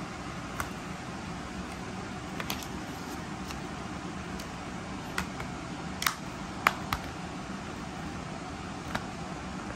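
Scattered clicks and taps of a plastic Blu-ray case being handled, with the two sharpest snaps a little after the middle as the case is shut. A steady hiss runs underneath.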